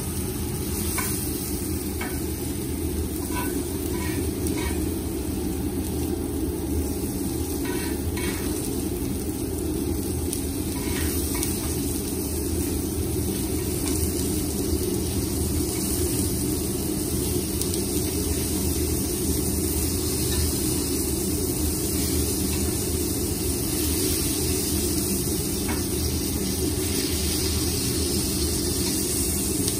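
Steak sizzling in butter in a cast-iron skillet over a gas flame, steady throughout, with light clinks of a metal spoon against the pan during the first dozen seconds as the butter is spooned over the meat. A steady low rumble runs underneath.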